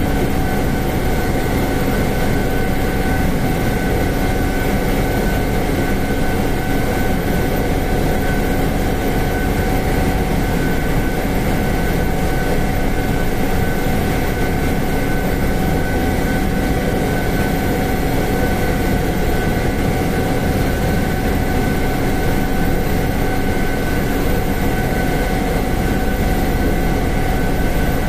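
Sikorsky S-92 helicopter heard from inside the cockpit while taxiing: a steady drone of the rotors and twin turboshaft engines, with several steady high whining tones over it.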